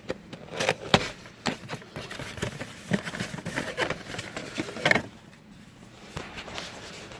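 Irregular clicks, knocks and rattles of plastic dash trim and a headlight switch assembly being handled and worked loose, busiest for about five seconds and then falling quieter.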